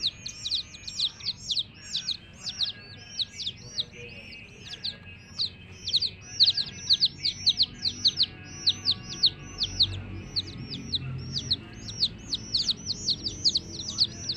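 A group of baby chicks peeping continuously: short, high, downward-falling peeps, several a second and overlapping.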